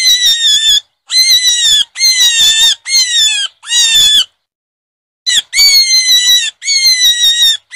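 A run of loud, high-pitched animal squeals, about eight in all, each lasting roughly half a second to a second and bending slightly downward in pitch, with a pause of about a second about four seconds in.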